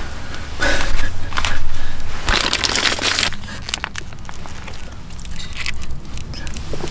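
Crinkling, crunching handling noise: three loud rustling bursts in the first three seconds or so, then quieter scattered clicks, over a steady low hum.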